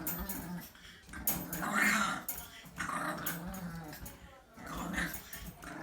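Pet dog growling in several separate bouts as it tussles with its cage, with sharp clicks in between.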